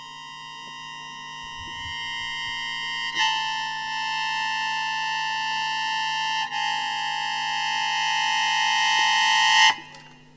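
Instrumental music: one long held note with bright overtones that swells steadily louder, joined by a second close note about three seconds in, then cut off suddenly near the end.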